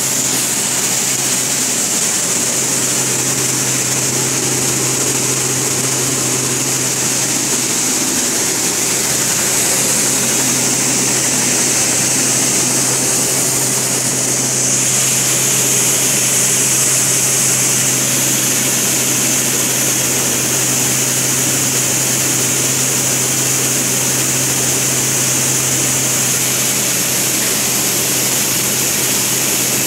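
Five-fan gravity separator running: its fans blowing air up through the seed-covered mesh deck make a loud, steady rush of air over a constant low hum.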